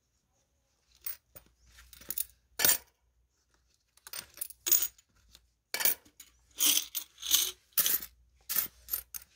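Korean 500-won coins clinking against one another and on a paper-covered table as a gloved hand picks them up, stacks and sorts them. An irregular run of sharp metallic clinks after about a second of quiet, coming thicker and louder in the second half.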